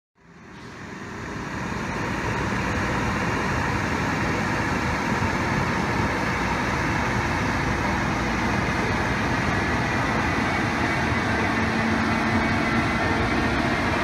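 DB Cargo Vectron class 193 electric locomotive hauling a freight train away: a steady rush of its running equipment and rolling train, with faint whining tones that rise slightly near the end as it gathers speed. The sound fades in over the first two seconds.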